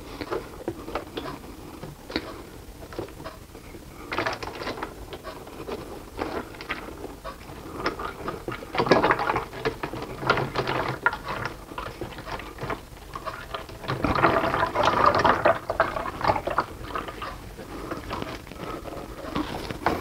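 Used engine oil pouring from an oil extractor tank's spout through a funnel into a plastic oil jug, splashing unevenly, louder in two spells about nine and about fifteen seconds in.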